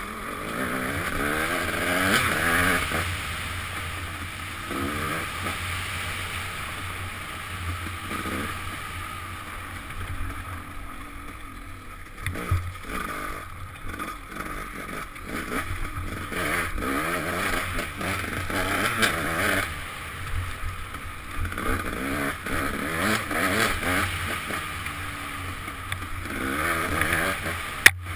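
KTM dirt bike engine revving up and falling back over and over as the rider accelerates, shifts and slows on the trail. It is heard close up from a helmet-mounted camera. There is a sharp click near the end.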